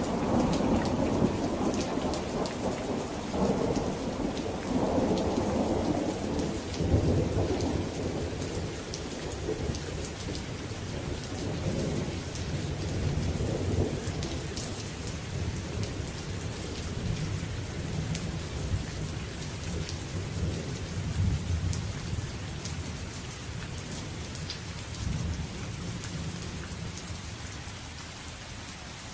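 Steady rain falling, with thunder rumbling heavily in the first half and fading away toward the end.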